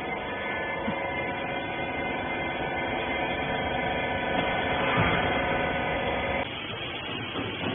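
Electric motor and hydraulic pump of a used-clothes baler running with a steady hum that cuts off suddenly about six and a half seconds in.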